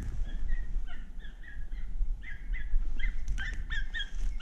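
Distant hunting dogs yelping in a quick, ragged run of short high barks, growing busier near the end, over a low steady rumble.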